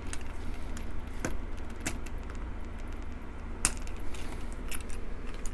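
Scattered small metal clicks and taps as the second omega spring of a folding knife's axis lock is worked off by hand, with the loudest click about two-thirds of the way through. A low steady hum runs underneath.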